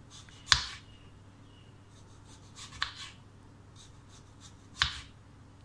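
Kitchen knife slicing a peeled potato into thin rounds on a wooden cutting board: three sharp knocks of the blade through the potato onto the board, about two seconds apart, the first the loudest.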